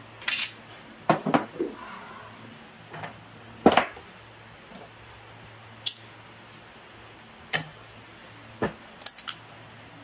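Irregular clinks and knocks of hand tools and metal engine parts being handled and set down, about ten separate sharp sounds.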